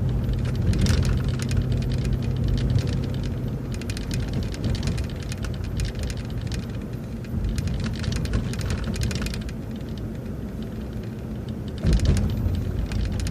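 Inside a moving city transit bus: steady engine drone with road and tyre noise and rattling from the cabin. The engine note drops away about four seconds in, then picks up again near the end.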